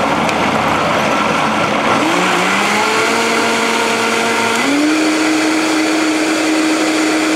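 Vitamix blender motor puréeing soup. It spins up with a rising whine about two seconds in, then steps up to a higher pitch about two-thirds of the way through as the speed dial is turned up, and keeps running steadily.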